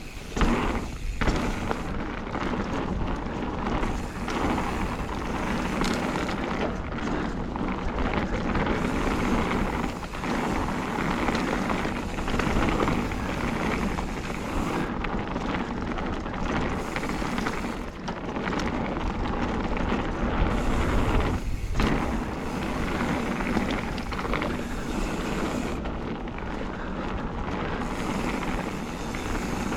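Knobby tubeless mountain-bike tyres (Schwalbe Magic Mary front, Hans Dampf rear) rolling steadily over a dirt trail, with a few knocks and rattles from the bike over bumps near the start.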